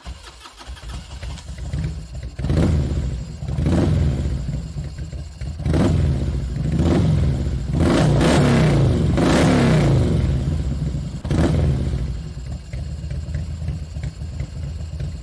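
Motorcycle engine idling and revved several times, each blip of the throttle rising and falling, with one longer held rev about eight seconds in; the sound fades away near the end.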